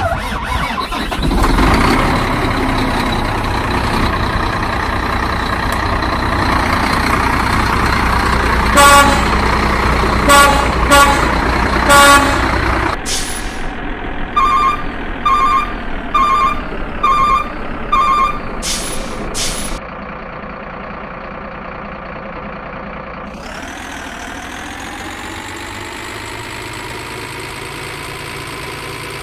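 Truck engine running, with four short horn honks, then a row of five evenly spaced beeps like a reversing alarm, and then a steady engine sound that rises slightly in pitch near the end.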